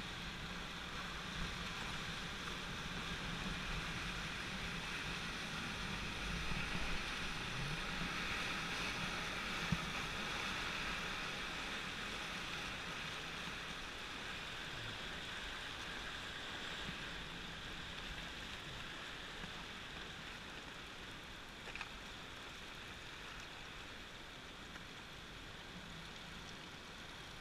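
Whitewater on the Upper Salt River rushing and splashing around a raft: a steady hiss that grows a little louder in the first ten seconds and then slowly eases off, with a couple of faint knocks.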